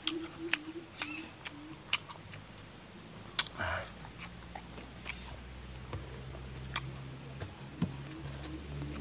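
Close-up eating sounds of a man chewing raw vegetables: a string of short, sharp crunches and mouth clicks, with a steady high whine and a low hum behind.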